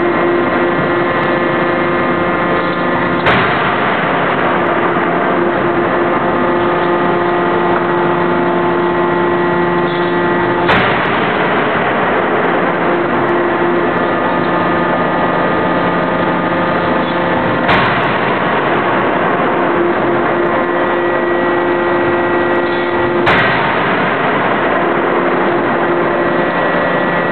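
8-ton (200 kJ) CNC fully hydraulic die forging hammer striking a red-hot forging in its die: four sharp blows about five to seven seconds apart over a steady machine hum with several held tones.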